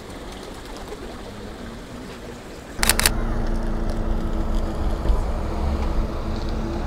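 Quiet street ambience, then about three seconds in two sharp clicks and a sudden steady low rumble with a constant hum, like a motor vehicle's engine running.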